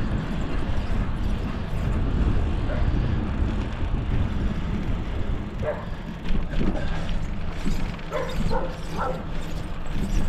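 Wind buffeting the microphone on a moving bicycle, with a dog barking several times from about six seconds in.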